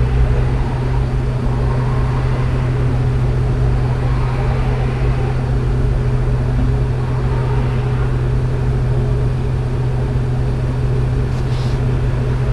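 A steady, unchanging low mechanical hum over a constant background rumble.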